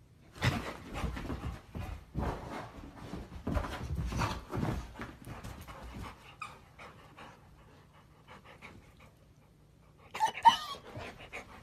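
Labrador retriever panting close to the microphone, densest and loudest over the first six seconds. About ten seconds in there is a short, high-pitched dog whine.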